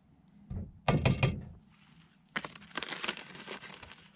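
A few sharp metallic knocks as a metal coffee scoop is tapped against the stainless steel pot while ground coffee is dumped in, followed from about two and a half seconds in by the crinkling of a plastic zip-top bag of coffee being handled.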